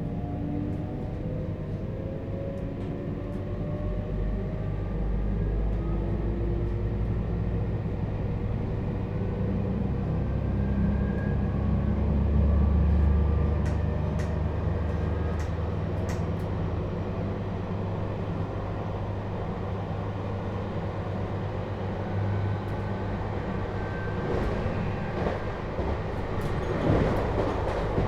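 Running sound of a JR Hokkaido 721 series electric train, heard from inside the motor car with its Toshiba GTO-VVVF inverter. The inverter and traction motors give a whine whose tones climb slowly in pitch as the train gathers speed, over a steady rumble of wheels on rail. A few rail-joint clicks come near the end.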